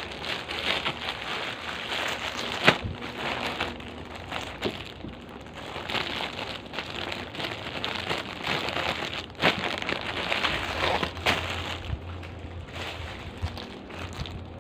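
Clear plastic packaging crinkling and rustling as it is handled, with a few sharper crackles.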